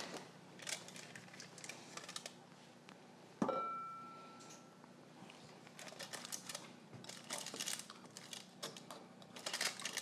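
A silicone spatula tapping and scraping inside a stainless steel mixing bowl as cheesecake batter is scraped out of it, in light scattered clicks. About three and a half seconds in, a sharper metal knock makes the bowl ring briefly; a quick run of small clicks follows near the end.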